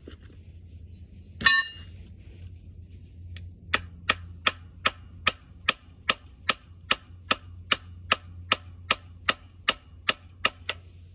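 A single loud metallic clang with a brief ring, then a steady run of about twenty sharp light metallic taps, nearly three a second, on the engine's metal parts during the camshaft removal of a Wisconsin V4 engine teardown.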